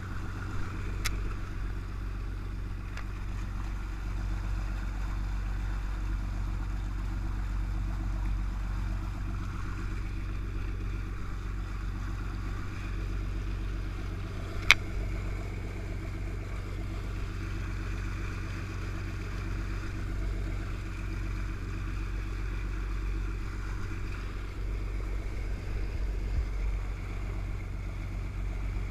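A motorboat's engine running steadily under way, a low even drone with a rushing hiss of water and wind over it. A sharp click about 15 seconds in, and a fainter one about a second in.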